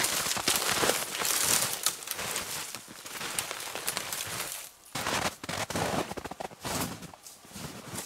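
Footsteps crunching through snow while dry twigs and bare branches crackle, snap and scrape against clothing and a backpack as a person pushes through a thicket. The crunching and crackling is irregular, with a short lull about halfway.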